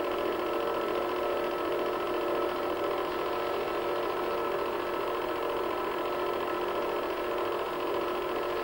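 Home-movie film projector running: a steady mechanical whirr with an even hum.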